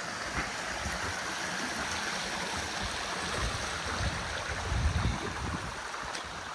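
Mountain stream, Detweiler Run, flowing steadily, with a few low thumps about two-thirds of the way through.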